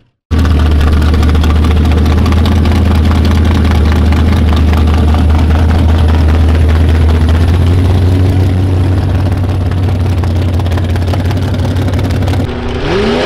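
Mud-bog truck engine running loud and steady at a high idle, cutting in abruptly just after the start. Near the end it revs up, climbing sharply in pitch.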